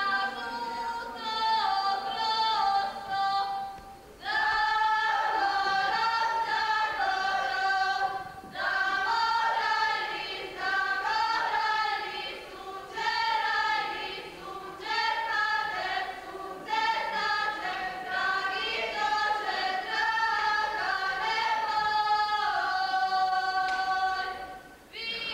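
A group of women singing a folk song a cappella, in phrases of about four seconds with short breaks between them.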